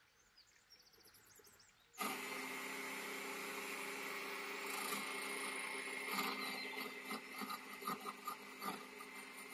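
Near silence for about two seconds, then a Parkside benchtop wood lathe runs with a steady motor hum and whine. From about six seconds in, short irregular ticks and scrapes come over the hum.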